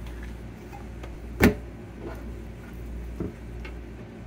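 Fish-filleting work on a cutting board: one sharp knock about a second and a half in, and a softer one later, over a steady low hum.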